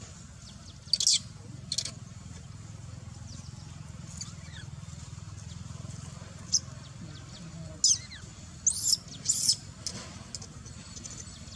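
Newborn macaque giving short, high-pitched squeaking cries, about seven scattered calls, most falling in pitch, over a low steady hum.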